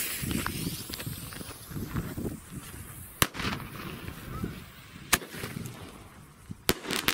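A small consumer firework tube firing from the ground after its fuse is lit, giving sharp cracks about three seconds in, again around five seconds, and twice close together near the end, with a low rumble between them.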